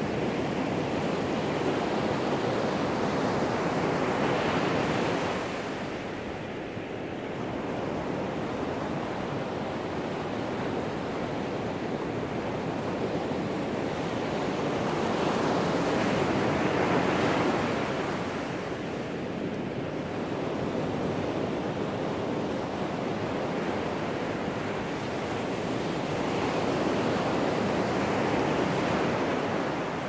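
Ocean surf breaking on a sandy beach and washing up the sand, a steady rushing that swells and eases in three long surges.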